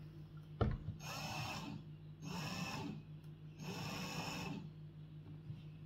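Hart cordless drill run slowly in three short bursts of about a second each, driving a screw-extractor bit into a small stripped bolt, with a click shortly before the first burst.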